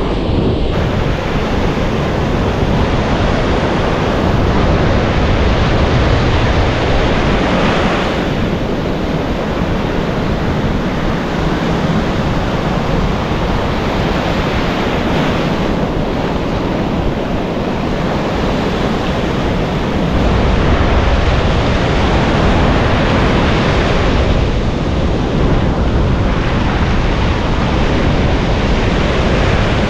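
Ocean surf breaking and washing up the beach, swelling with a new wave about every eight seconds, with wind rumbling on the microphone.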